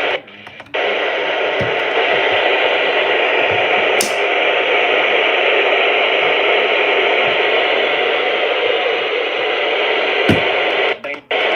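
Steady FM radio static: loud hiss from a software-defined radio tuned to a NOAA Weather Radio channel with no usable signal. A short dip at the start, a brief chirp about four seconds in, a click near the end, and momentary dropouts just before the end.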